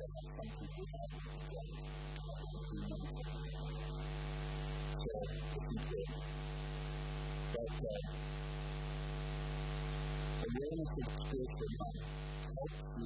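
Steady hum made of several held tones, growing slowly louder, with a few faint, brief snatches of voice.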